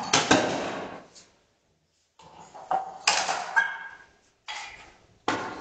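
Kitchen clatter from cookware and utensils handled on a tiled counter: four bursts of knocks and scrapes with brief metallic ringing, each cutting off to dead silence.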